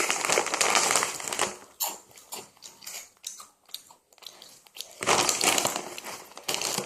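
Crisp corn-flavoured Honey Tongtong potato chips being bitten and crunched close to the microphone. There are two dense stretches of crackling crunch, one at the start and one about five seconds in, with scattered quieter crunches between them.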